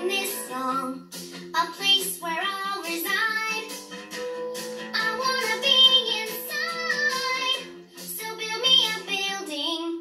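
A children's cartoon song: a young voice sings a melody over light instrumental backing.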